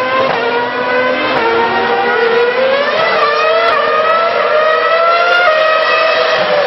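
Formula 1 2.4-litre V8 race-car engine at high revs, its note climbing steadily in pitch and dropping sharply about 3 and 5.5 seconds in as the car upshifts.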